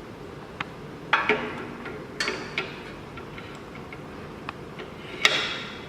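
Metal clicks and knocks of a tubular key clamp being fitted into an SEC-E9 key cutting machine: a few separate sharp taps, some with brief ringing, the loudest about five seconds in.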